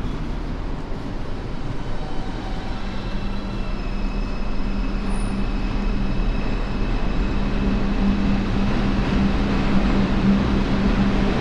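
A New York City Subway 6 train car getting under way, heard from inside: a steady rumble with a hum from the car's motors that grows louder, and faint high tones joining about four seconds in.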